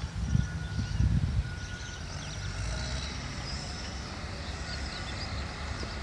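Wind rumbling on the phone's microphone outdoors, with two louder gusts in the first second and a half, and faint bird chirps high above it.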